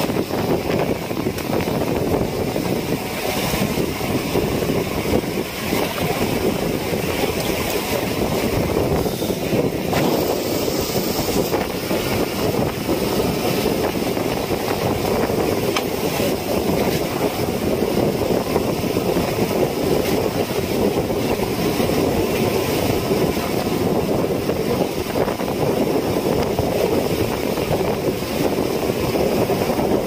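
Fishing boat's engine running steadily at an even level.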